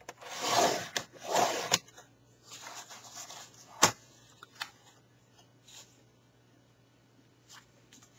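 A paper trimmer's scoring blade scraped twice along a sheet of cardstock, scoring a fold line. The sheet then rustles as it is slid into a new position, and there is one sharp click.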